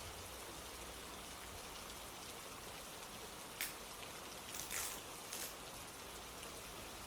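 Steady rain ambience: an even hiss of falling rain. A few brief, crisp sounds stand out around the middle.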